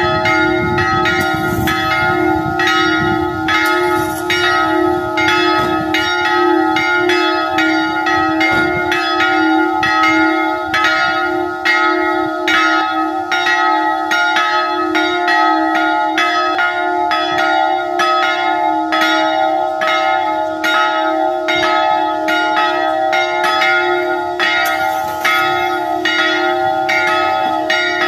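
Church bells pealing: a rapid, even run of strokes, about two a second, with several bells' tones ringing on over one another.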